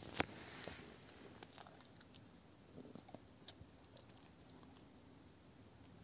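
Faint rustling and small clicks of a small dog shifting about on bedding, with one sharp click just after the start.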